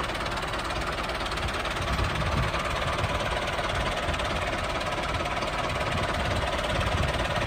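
Small motor of a miniature DIY farm machine running steadily, with a fast, even rattle.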